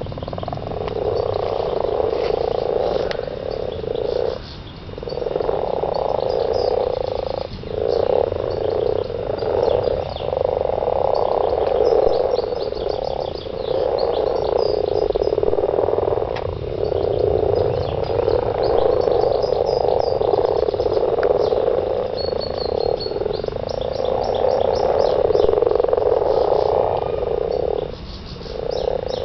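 Breeding chorus of many frogs croaking together at a spawning pond, a continuous dense croaking that dips briefly a few times.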